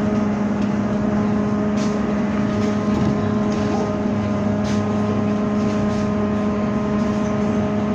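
Cabin sound of a MAZ-203T70 trolleybus moving at steady speed: a constant electrical hum with several fixed tones over road rumble, with a few light rattles.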